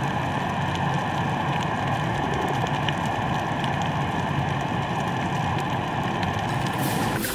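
Steady underwater ambient noise: an even hiss with a low hum underneath and a few faint scattered clicks.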